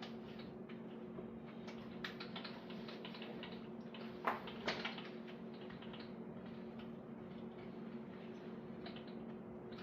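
Light, irregular clicks and taps of tools and parts being handled, with two louder clicks about four and a half seconds in, over a steady low hum. No grinder is running.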